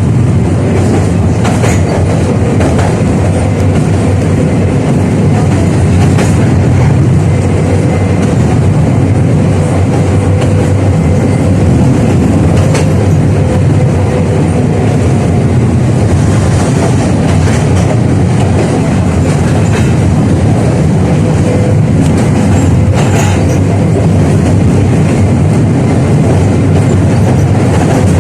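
71-605A (KTM-5A) tram running along the track. Its wheels and running gear give a steady low rumble, with a few sharp clicks from the rails and a faint steady tone.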